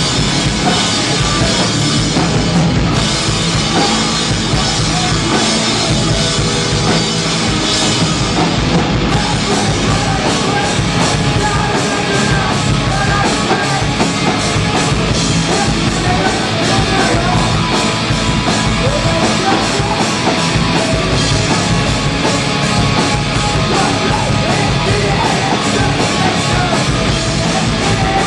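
Hardcore band playing live: loud, dense, unbroken music driven by a drum kit.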